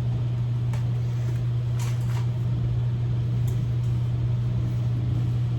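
A steady low hum, with a few faint clicks about two and three and a half seconds in.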